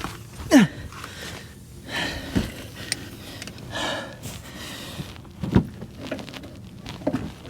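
A man grunting and breathing hard in short falling-pitch strains, with a few knocks of the lug wrench, as he tries to break loose lug nuts that are too tight to budge.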